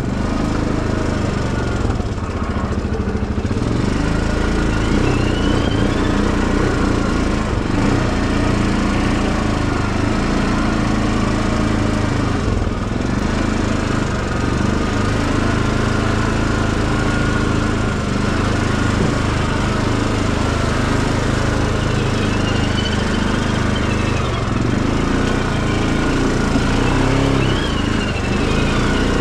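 Engine of a small vehicle running steadily during a ride, with a few faint high rising and falling squeaks over it.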